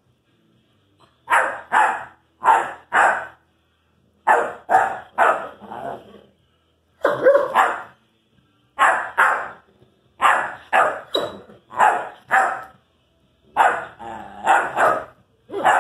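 Irish wolfhound puppy barking in short bouts of two to four quick barks, a new bout every second or two, at an older dog.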